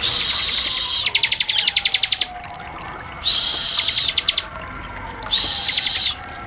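Ciblek (prinia) giving three loud buzzy calls, the first two breaking into a rapid stutter of ticks, about ten a second, before stopping: the 'ngebren' buzzing call. Faint dripping water runs underneath.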